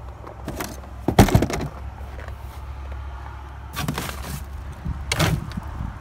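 Rustling and knocking as trash in a dumpster is moved about, in four short bursts with the loudest about a second in, over a steady low rumble.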